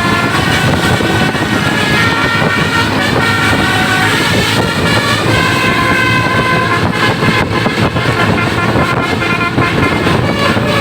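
A bus's telolet basuri musical horn playing a tune of stepped notes, over the rumble of the bus engine and road traffic.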